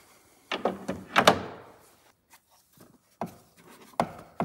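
Plastic cover of a car's cabin-air filter housing being pushed shut onto its latches: a few hard plastic knocks, the loudest just over a second in, followed by a few lighter clicks.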